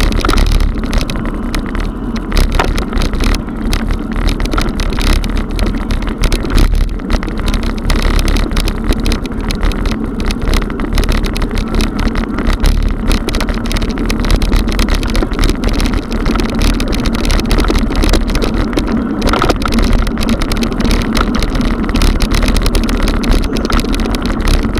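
Mountain bike tyres rolling over cobblestones, heard through a camera mounted on the bike: a continuous loud rumble and rattle as the wheels and frame jolt over the stones.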